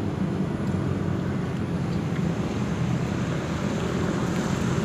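Steady low motor hum with a constant background rush of noise.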